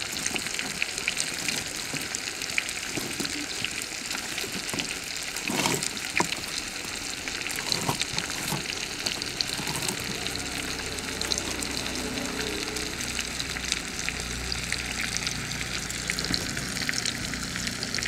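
Whole parrotfish coated in chilli paste shallow-frying in groundnut oil: a steady sizzle with constant fine crackling and a few louder pops about six seconds in.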